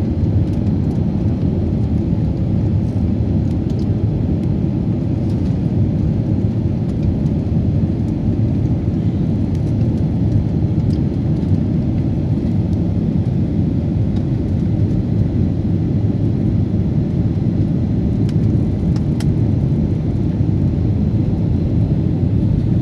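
Loud, steady low rumble of an airliner's jet engines and rushing air, heard inside the passenger cabin during the climb after takeoff.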